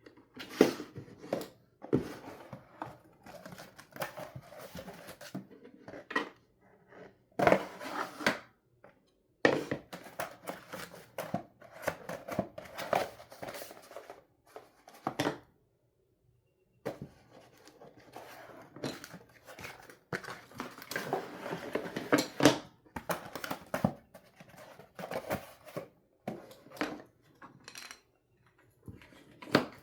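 Wooden toy pizza pieces being handled: irregular knocks, clacks and scraping, coming in bursts with short pauses between them.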